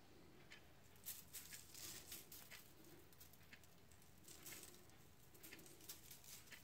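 Salt sprinkled from a spoon onto frozen French fries on baking paper: faint pattering of grains and light ticks, in several short spells.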